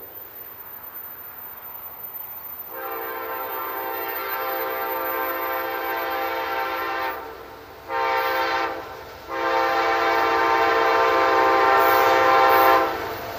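Amtrak passenger locomotive's air horn sounding the end of the grade-crossing signal: a long blast, a short one and a final long one, getting louder as the train approaches.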